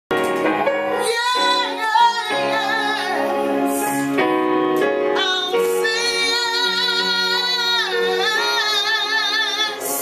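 A woman singing solo, holding long notes with vibrato, while accompanying herself on a digital keyboard with a piano sound.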